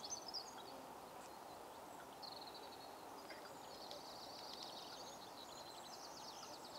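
Small birds singing: high, quick chirps, then a long run of rapid repeated trilling notes from about three and a half seconds in, over a faint steady outdoor background noise.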